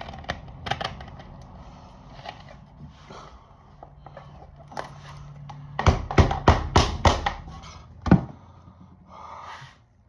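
Handling noise: scattered taps and clicks, then a quick run of about eight loud, sharp knocks about six seconds in and one more knock a second later.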